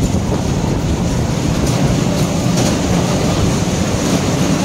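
Children's amusement-park car ride running along its rail track right beside the microphone: a steady, loud low rumble.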